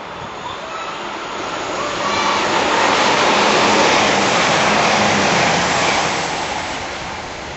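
A passenger train passing through a station at speed. The rush of wheels and air builds over about two seconds, stays loud for about three, then fades away.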